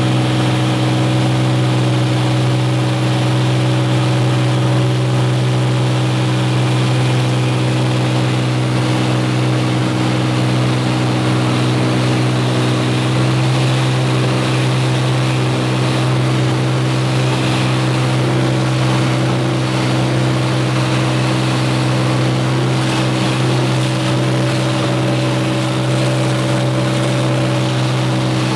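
Cirrus light aircraft's piston engine and propeller droning steadily, heard from inside the cockpit, with a constant low hum and a hiss of air over it.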